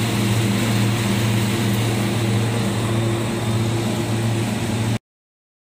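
A 3000-litre bulk milk cooler running, with its two refrigeration compressors (a 5-ton and a 3-ton unit) and its milk agitator motor all switched on: a steady machine hum. The hum cuts off abruptly about five seconds in.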